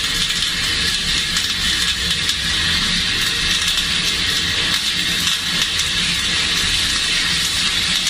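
Flux-cored arc welding with rutile-cored wire on an overhead fillet weld: the arc gives a steady crackling hiss, unbroken throughout.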